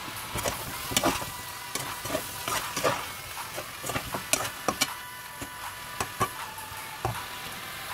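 A spoon stirring chicken pieces in a nonstick pot, with irregular clinks and scrapes against the pot, over the steady sizzle of the chicken sautéing.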